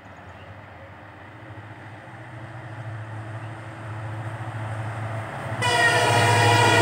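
An Indian Railways WDP-4 class diesel locomotive approaching at speed, its engine hum and rumble growing steadily louder. About five and a half seconds in, its horn starts suddenly as a loud chord of several tones and is still sounding at the end.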